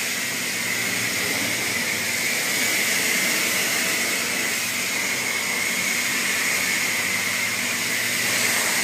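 Steady, unbroken rushing hiss of running machinery with a faint low hum beneath it, staying level and even throughout.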